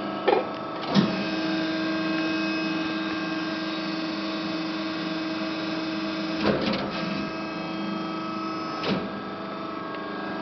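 Hydraulic pump of an Amada Promecam HFBO 220-ton press brake running with a steady hum under pressure. A few sharp clicks break in, about a second in and twice more later.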